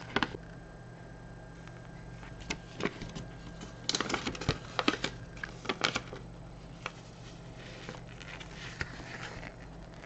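Paper instruction booklet handled and its pages turned: crisp crackles and snaps of stiff paper, densest about four to six seconds in, then a softer rustle near the end.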